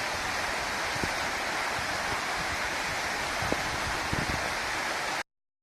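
Steady rushing of a waterfall, with a few soft low bumps, cutting off abruptly near the end.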